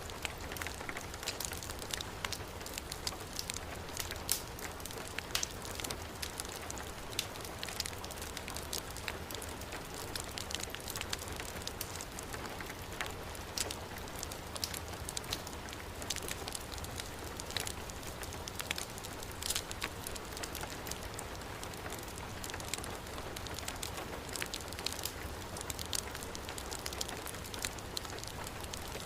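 Heavy rain falling steadily, mixed with a wood fire burning with scattered sharp crackles and pops.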